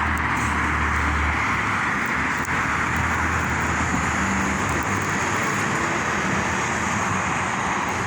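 Steady road traffic: a constant wash of tyre and engine noise from passing cars, with a low engine hum in the first second and a half.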